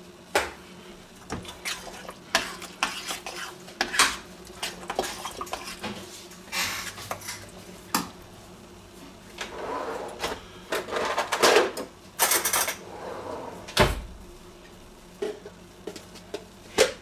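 A metal spoon stirring a thick spinach sauce in a stainless steel pot, with irregular clinks and knocks against the pot's sides, thicker stretches of scraping and clattering a little past the middle, and a single sharp knock about 14 seconds in.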